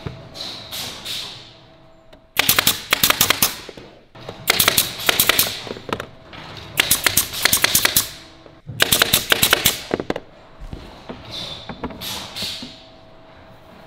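Pneumatic nail gun fired in four quick bursts of shots, each burst about a second long, driving fasteners into particleboard drawer panels. Softer hissing comes in between the bursts.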